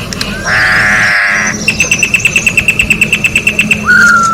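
Corrupião (campo troupial) calling: a harsh buzzy note of about a second, then a fast run of short high notes, about eleven a second, for some two seconds, then a loud clear whistled note near the end. A steady low hum runs underneath.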